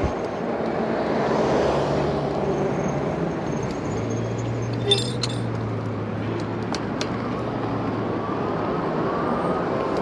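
Steady road and wind noise while riding an electric bike along a street, with a car passing by. A brief clinking rattle about five seconds in.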